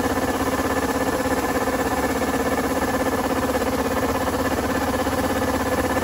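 Kubota ER470 combine harvester running steadily while its unloading auger discharges threshed rice grain. It is an even machine hum with several held tones and a fast, regular pulse.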